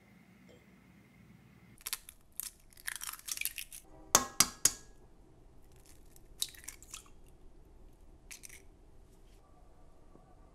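An egg cracked on a stainless steel mixing bowl: three sharp taps close together about four seconds in, with crackling of the eggshell being handled and pulled apart before and after.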